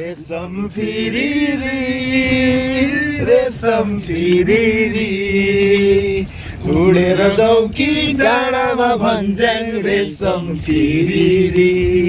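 A man singing slow, chant-like phrases of long-held notes, with short breaks between the phrases.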